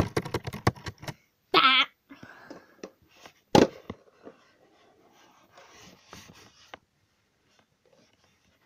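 A rapid run of clicks and then a single sharp knock as small plastic Shopkins figures are handled against a plastic toy vending machine, followed by faint rustling. A brief pitched vocal sound from the child comes between them.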